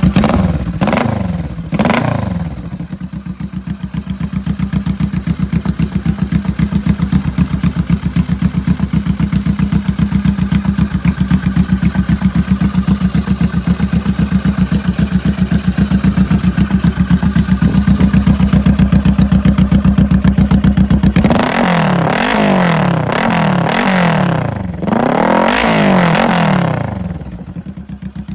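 Kawasaki Vulcan S parallel-twin engine running through a custom lake-pipe exhaust. It opens with a few quick throttle blips, then idles steadily with an even, loud exhaust pulse. About three-quarters of the way through comes a run of repeated revs, rising and falling, before it settles back toward idle.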